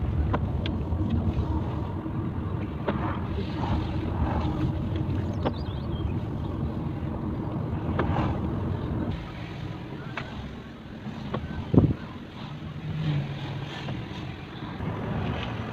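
Steady low rumble of a car's engine and tyres heard from inside the cabin while driving, with a few small clicks and one louder knock about two-thirds of the way through.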